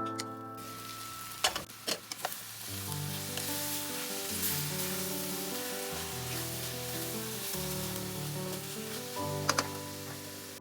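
Food sizzling in a pan while it is stirred, with a few sharp clicks of the utensil against the pan, several about one and a half to two seconds in and a couple more near the end.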